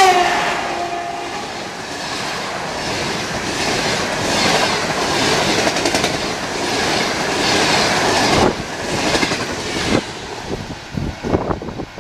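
An EP20 electric locomotive's horn ends with a drop in pitch as the locomotive passes close by. Its passenger coaches then rush past with a rhythmic clickety-clack of wheels. Near the end the last coaches go by and the sound falls away to scattered, fading wheel clicks.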